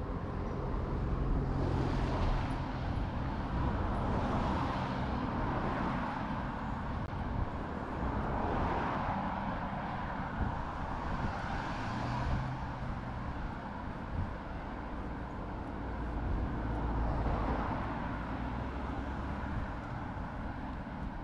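Road traffic: motor vehicles passing one after another, each swelling and fading, over a steady low engine hum.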